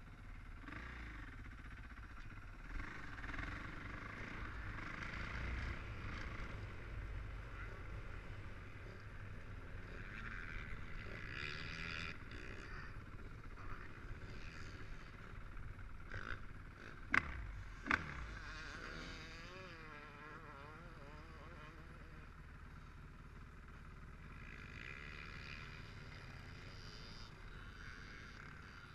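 Dirt bike engine running on a motocross track, its revs rising and falling with the throttle. Two sharp knocks a little past halfway, under a second apart.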